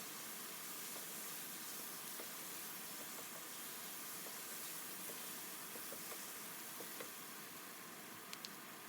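Onions and ground spices frying in oil in a pan, giving a faint steady sizzle, with a couple of light clicks near the end.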